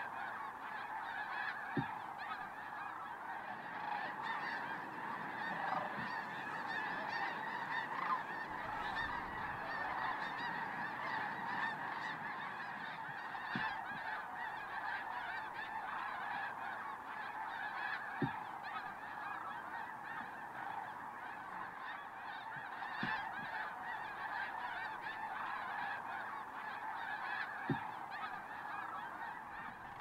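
A huge flock of migrating birds calling together in a dense, unbroken chorus of overlapping calls. A few brief soft clicks stand out now and then.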